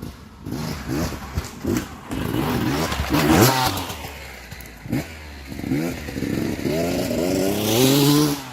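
Beta 300 RR two-stroke dirt bike engine worked in short throttle blips and revs, with a few sharp knocks, as it is ridden over logs. A bigger rev comes about three seconds in, and a longer rising rev runs from about six seconds in until it cuts off just before the end.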